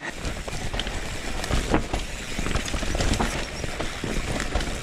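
Mountain bike riding over rough trail: a steady rumble of wind on the camera microphone and tyre noise, with frequent rattling knocks and clicks from the bike.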